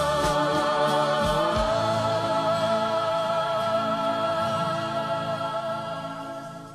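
Background music: a slow song ending on a long held, slightly wavering vocal note over sustained chords, fading out near the end.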